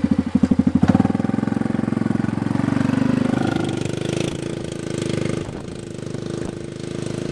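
Four-wheeler ATV engine running with a fast, even pulse just after starting, then revving as the machine drives off. The sound slowly grows fainter as it moves away.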